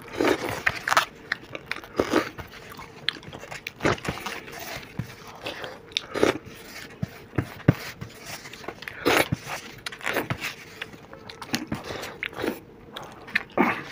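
Close-miked eating of soft yogurt-soaked dahi vada topped with crunchy sev: chewing and mouthfuls taken off spoons, with spoons scraping and tapping on the plates in short, irregular sounds.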